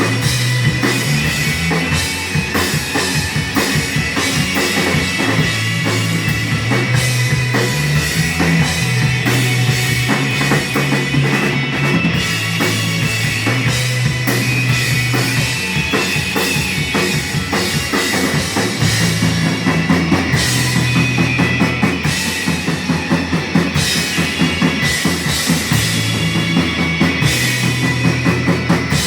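Rock music with a drum kit playing steadily over a bass line that steps between notes.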